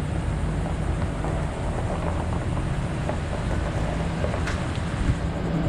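Vehicle driving slowly along a paved road: a steady low rumble with an even hiss of road and wind noise.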